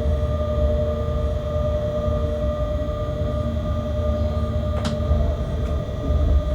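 Freight locomotive running, heard from inside its cab: a steady low rumble with a constant electrical hum of several tones. A single sharp click comes about five seconds in.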